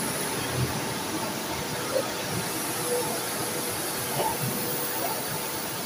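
Steady hiss of machinery running on a granite slab polishing line, with a faint high whine above it.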